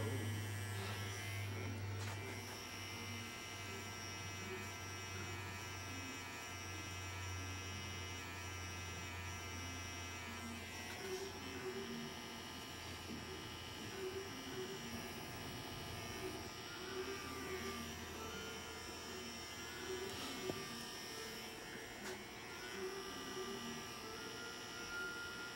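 Electric hair trimmer buzzing steadily while cutting a tapeline at the back and side of a skin taper. A low hum runs under it and fades out about eleven seconds in.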